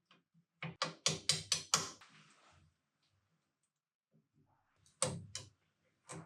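Sharp knocks while a foot peg is fitted to a dirt bike frame: about six in quick succession, then two or three more near the end.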